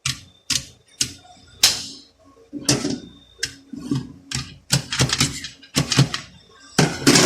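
Steel clutch plates and friction discs of a 6L80 automatic transmission clinking as they are laid one by one into a clutch pack: about a dozen sharp metallic clicks at uneven intervals, some with a short ring.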